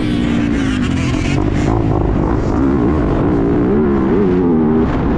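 Dirt bike engine revving, its pitch rising and falling over and over as the throttle is worked.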